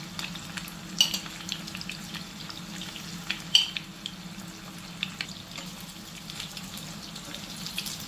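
Chicken breast pieces coated in an egg and almond-flour marinade sizzling and crackling as they fry in a little oil in a pan, with two sharper clicks about a second in and halfway through. A steady low hum runs underneath.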